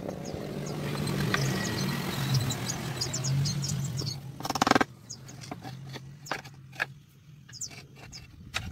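A steady low engine-like hum with a noisy rush over it, ending in a short loud burst and cutting off suddenly about five seconds in; after that, scattered small clicks and taps of a wooden box being handled.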